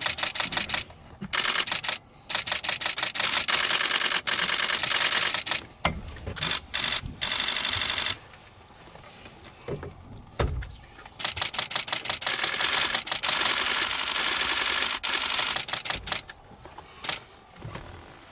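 Camera shutters firing in rapid continuous bursts from several photographers' cameras in high-speed burst mode. The clicking comes in runs of a few seconds with short pauses between, and a couple of dull low thumps fall in the gaps.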